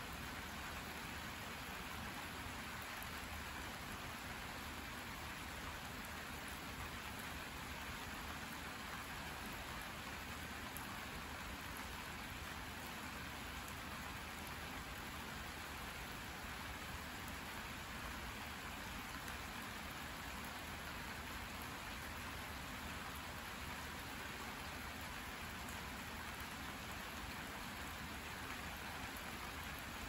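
Steady, even rain falling on a garden's leaves, soil and standing puddles.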